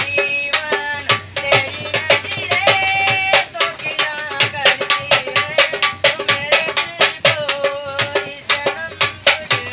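A folk song sung over a brisk, steady beat on a hand drum, the voice sliding between held notes.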